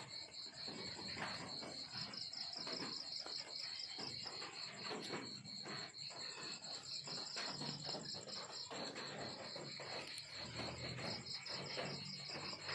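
Crickets chirping in a fast, even pulsed trill that runs on with only brief breaks, over faint scattered clicks and rustling.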